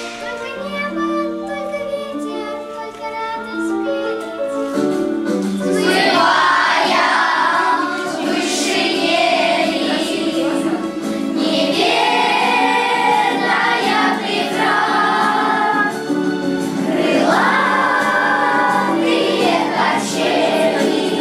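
A group of children singing a song together over an instrumental backing track. The singing gets louder about five seconds in.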